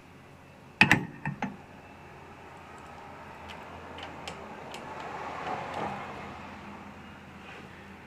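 Metal hand tools clinking at the engine case while a socket wrench on a swivel joint loosens a nut on a stud: a quick cluster of sharp metallic clicks about a second in, then faint rustling and a few light ticks.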